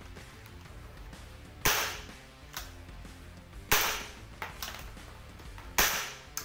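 Three sharp gunshot-like bangs about two seconds apart, each fading over about half a second, over faint background music.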